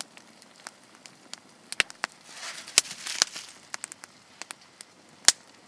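Wood campfire crackling, with sharp pops scattered irregularly, the loudest shortly before the end, and a brief hiss about halfway through.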